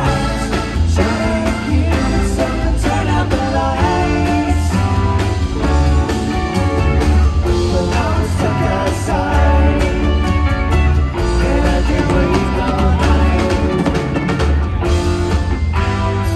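Rock band playing live: electric guitar and bass over drums, with a voice singing.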